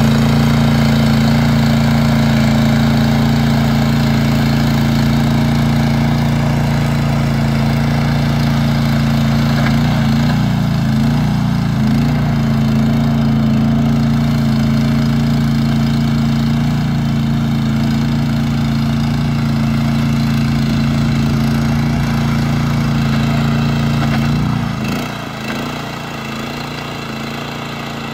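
Tracmaster 740 two-wheel tractor's engine running steadily, driving a power harrow through the soil. The sound drops slightly in level near the end.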